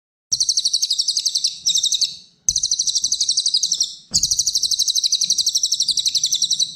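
Cililin songbird singing in rapid trills of repeated high notes, about ten a second, in three long phrases that start abruptly after short breaks.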